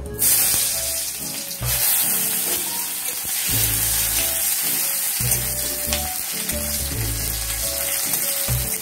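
Chopped onion sizzling in hot refined vegetable oil in a pan, the sizzle starting suddenly as the onion goes in and then running steadily. Background music plays underneath.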